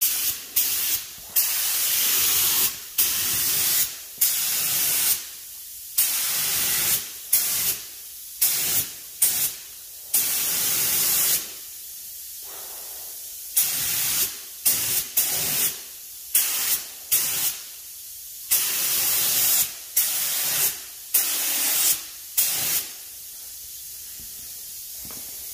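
Compressed-air paint spray gun hissing in short bursts as the trigger is pulled and released over and over, spraying paint onto a tractor wheel rim, with a couple of longer pauses. A fainter steady hiss runs between the bursts.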